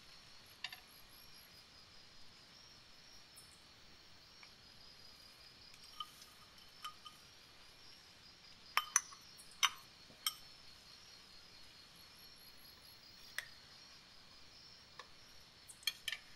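Scattered light clinks and clicks of a metal spoon and frozen peas against a stainless steel paella pan, a cluster about nine seconds in and another near the end, over a faint steady high hiss.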